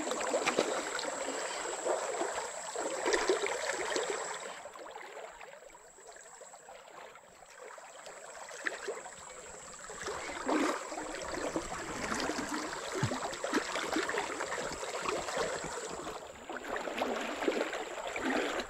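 Rushing water of a fast-flowing river, swelling and fading, with a thin steady high tone throughout.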